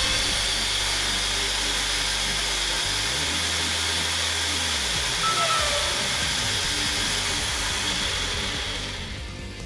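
RC car's brushed electric motor, driven by a G-Force Sport Brushed Power BEC speed controller, run flat out with the wheels spinning on a roller speed-test rig. It is a steady high whine with hiss from the drivetrain and rollers, and it fades near the end as the car slows down.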